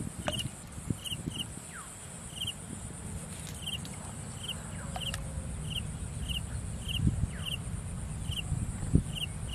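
Open-air countryside ambience: short high chirps repeat about twice a second over a steady high-pitched insect hum and a low wind rumble, with a few soft thumps.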